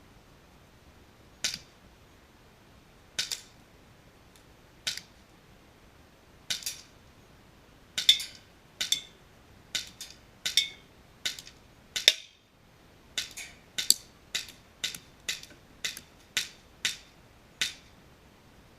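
HK USP CO2 airsoft pistol firing a string of about twenty shots at an irregular pace, each a sharp crack, a few followed at once by a second crack.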